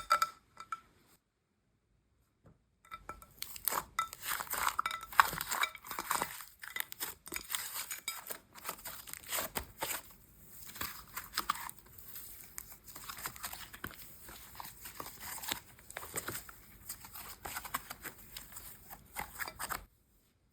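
Slime squished and pulled by hand, giving dense crackling and clicking. A single sharp click comes at the start, then a short quiet gap before the crackling sets in about three seconds in; it stops just before the end.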